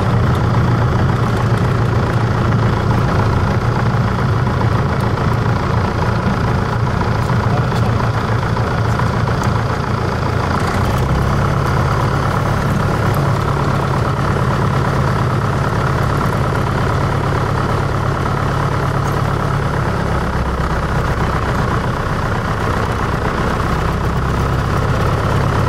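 Single piston engine and propeller of a Grob 115 running at low power after landing, a steady loud drone heard inside the cockpit. The engine's low hum changes note about eleven seconds in as the plane slows from the rollout to taxiing.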